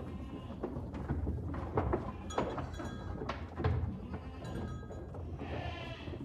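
A herd of livestock bleating, with one long bleat near the end, among scattered knocks and thuds.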